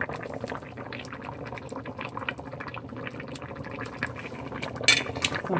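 A pot of black bean stew bubbling on the stove while a ladle scoops it and pours it into a bowl, with a steady crackle of small liquid sounds. A brief, sharper clatter comes near the end.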